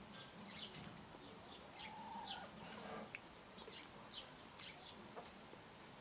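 Faint chirping of small birds: short, high, downward chirps repeated every half second or so. A single lower, arching call comes about two seconds in.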